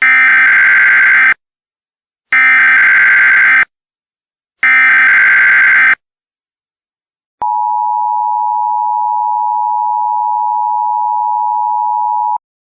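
Emergency Alert System header tones: three bursts of digital SAME data, each a little over a second long with about a second between them. After a short gap comes the steady two-tone EAS attention signal, held for about five seconds, which announces that an emergency alert message follows.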